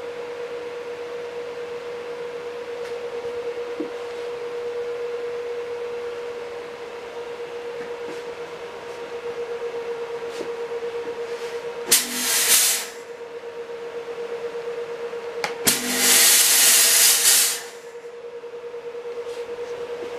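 Two bursts of loud hissing from a fog machine firing, the first about a second long near the middle and the second about two seconds long a few seconds later, over a steady hum with a held tone.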